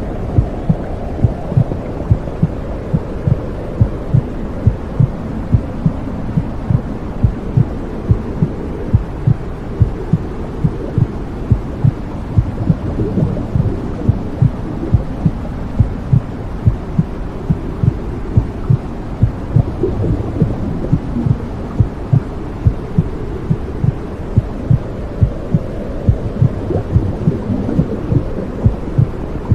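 Womb sound: a heartbeat thumping in an even, steady rhythm over a constant low whooshing rush, as a baby hears it inside the womb.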